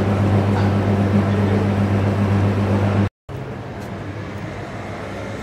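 City street noise carrying a strong, steady low engine hum. About three seconds in the sound cuts off for a moment, and quieter street ambience with little of the hum follows.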